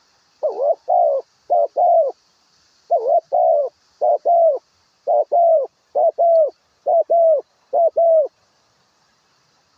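A dove cooing in a rapid run of about eight short two-note phrases, each rising and falling in pitch, that stops a little past eight seconds in. A faint high hiss lies underneath.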